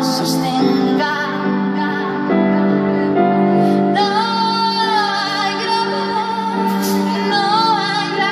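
Live pop song: a woman sings over held electric keyboard chords that change every second or so. Her voice is strongest from about four seconds in, on long notes with a wavering vibrato.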